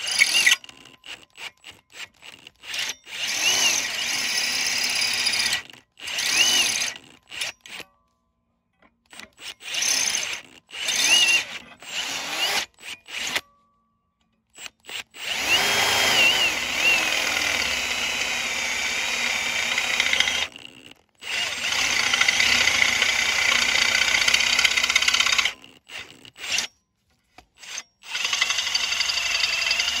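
Cordless drill with a twist bit boring into steel plate, run in short stop-start bursts for the first half and then in longer runs of several seconds. Its whine climbs in pitch each time the trigger is pulled.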